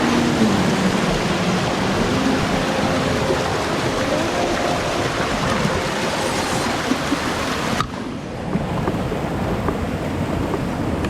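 Rushing stream water, a steady loud rush of noise. About eight seconds in it cuts suddenly to a duller, softer rush.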